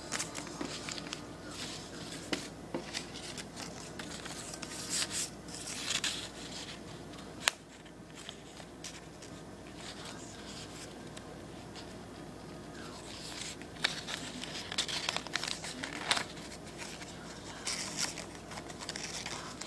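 Sheets of origami paper being folded and creased by hand: irregular crinkling and rustling, with a sharp click a little past halfway through the first half and a quieter spell in the middle.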